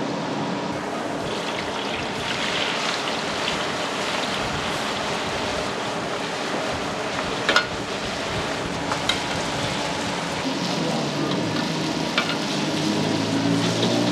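Noodles sizzling as they fry in hot oil in a carbon-steel wok over a charcoal fire, with a metal spatula clinking sharply against the wok a few times, loudest just over halfway through. A low hum joins near the end.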